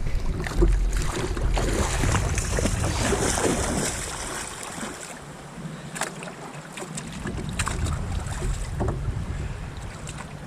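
Wind buffeting the microphone over water noise, easing off for a couple of seconds midway, with a few sharp clicks and knocks scattered through the second half.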